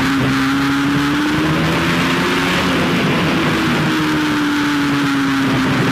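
Motorcycle engine running at a steady cruising speed under heavy wind and road noise, its note sagging and rising only slightly.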